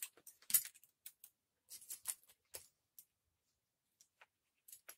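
Small metal hand tools, hex keys and a T-handle socket wrench, clinking and clicking against each other as they are handled and sorted, in scattered short taps with the sharpest one about half a second in.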